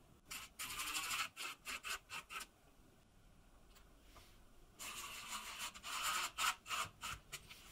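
Cordless drill-driver driving screws through a metal drawer slide rail into pine, in two spells of short stop-start bursts.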